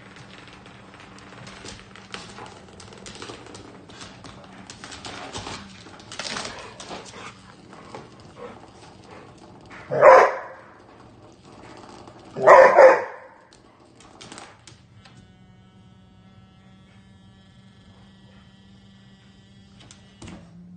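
Golden retriever barking twice, about ten and twelve and a half seconds in, the loudest sounds here. Before that come quick clicks and scuffles as the dog paws around on a hardwood floor, and a steady low buzz runs underneath.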